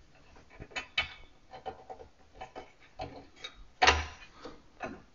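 Small irregular metal clicks and ticks from fingers handling the upper blade clamp and set screw of an old Ryobi scroll saw, with one louder clack about four seconds in.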